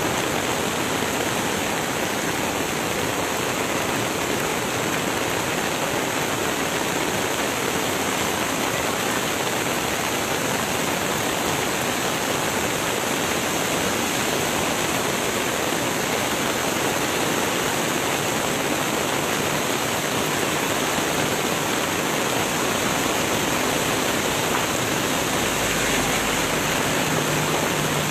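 Koshi River floodwater at high flood level rushing through the barrage, a loud, steady, unbroken rush of water.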